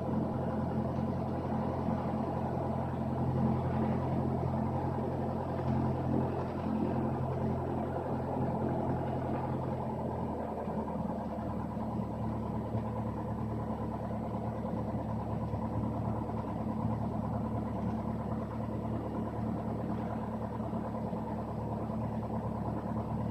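Cessna 172's piston engine running at low power before takeoff, a steady drone heard from inside the cockpit; its note shifts slightly about ten seconds in.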